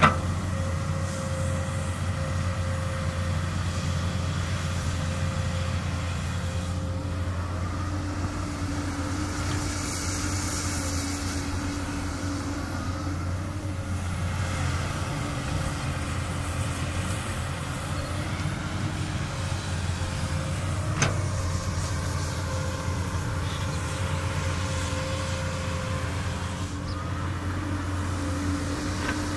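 Komatsu PC200 excavator's diesel engine running steadily, a low hum with steady whining tones above it. Two sharp knocks, one right at the start and one about two-thirds of the way through.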